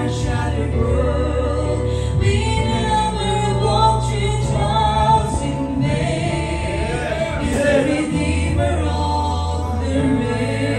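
A gospel song sung by a woman and a man into microphones, over an accompaniment of held low bass notes.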